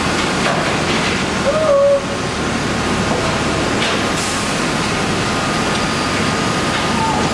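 Steady loud din of sawmill machinery running, with a short high squeal about one and a half seconds in.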